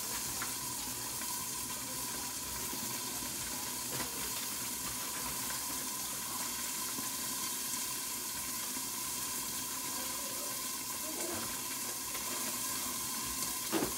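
Chicken pieces sizzling steadily in a large covered skillet, browning.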